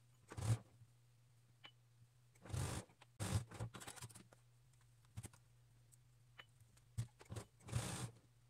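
Faint rustling and clicking of flannel fabric being handled and fed under a sewing machine's presser foot, in short bursts of under a second, about five times, over a steady low hum.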